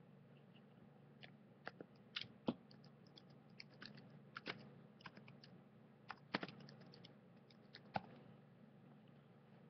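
Faint, irregular clicking and tapping, in scattered clusters, over a low steady hum.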